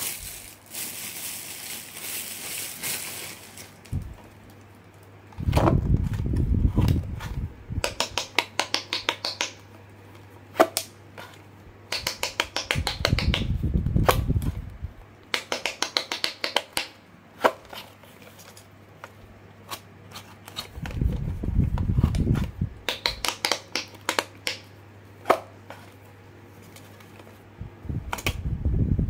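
Hands handling a plastic crab-shaped push-button fidget toy: groups of quick sharp plastic clicks and taps, with low rumbling knocks as the toy is picked up, held and turned over, over a faint steady hum.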